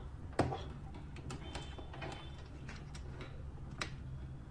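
Hands working a laptop and the keyboard's USB cable: a few sharp clicks and taps, the loudest a little under half a second in, over a faint low hum.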